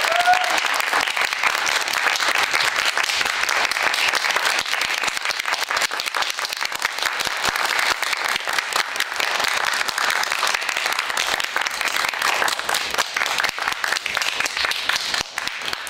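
Audience applauding steadily, the clapping fading near the end.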